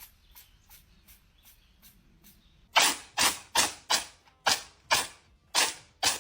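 A pet sneezing in a rapid fit: a few faint sneezes, then from about halfway a run of about eight loud, short sneezes in quick succession.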